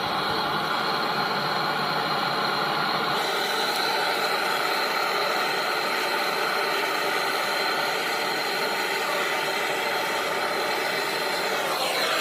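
An electric motor running steadily, a whir with a hiss, then switched off near the end and winding down.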